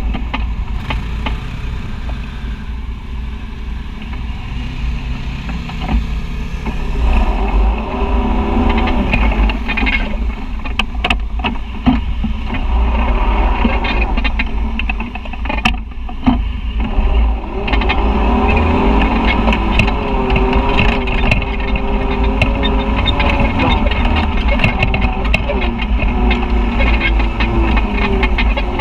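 Side-by-side UTV engine running and revving up and down as it drives a rough, muddy dirt trail, with a heavy low rumble and sharp knocks now and then, most of them in the middle stretch.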